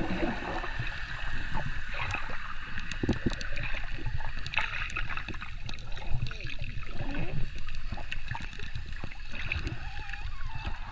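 Water heard through a camera held underwater: a muffled rumble of churning, bubbling water with frequent dull knocks as swimmers move beside it.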